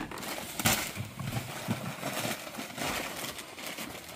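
Packing paper rustling and crinkling as items are handled and unwrapped, with a few light knocks.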